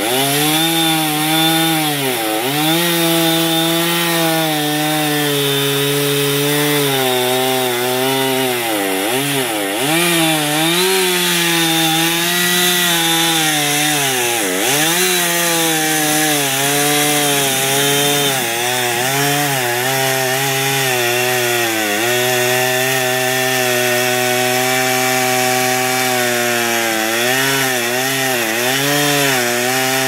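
Two-stroke chainsaw running at high revs while it cuts oak. Its engine pitch sags several times as the chain bogs down in the cut, then picks back up.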